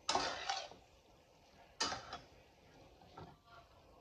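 A cooking utensil scraping and knocking against a metal pot as spaghetti is stirred and tossed in its sauce: a clatter at the start with a second stroke just after, another a little under two seconds in, and a fainter one near the end.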